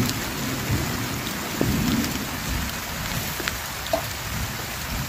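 Rain falling: a steady, even hiss with a low rumble underneath and a few scattered drop-like ticks.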